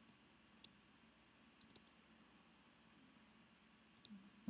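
Faint computer mouse clicks over near silence: a single click, a quick pair of clicks, then another click near the end.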